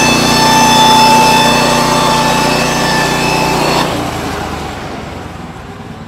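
Band sawmill running a cut through a kiln-dried white oak board, its engine and blade steady with a high whine. About four seconds in the whine and the deep hum stop suddenly, and the sound falls off to a lower, quieter running.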